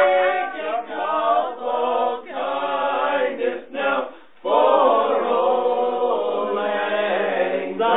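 A group of people singing together unaccompanied, several voices at once, with a short break a little past halfway before they carry on.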